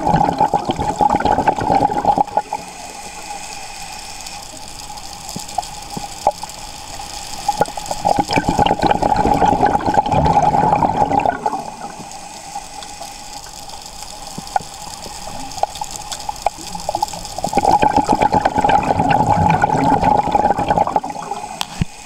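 Scuba diver's regulator venting exhaled air as a rush of bubbles, three long breaths out about eight seconds apart, with quieter hiss and faint clicks between them, heard underwater.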